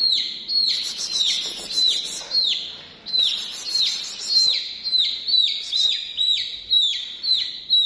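Domestic chick peeping loudly and without a break, a quick run of short falling peeps at a little over two a second, the distress call of a chick held in a hand.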